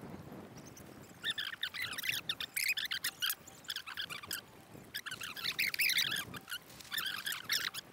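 Small birds twittering: clusters of quick, high chirps that come and go for several seconds.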